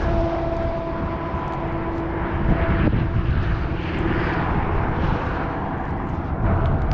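Steady engine noise with a heavy low rumble; a humming tone in it stops about three seconds in.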